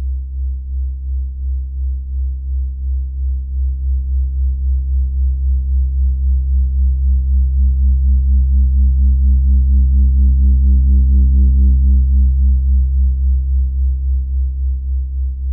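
Deep synthesizer drone in an electronic music piece: a low, steady tone with overtones, pulsing about two to three times a second, swelling in the middle and easing off toward the end.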